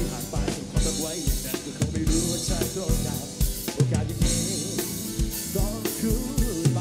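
Band music played back from a multitrack recording: a drum kit with kick and snare keeping a steady beat of about two kicks a second, over bass and other instruments.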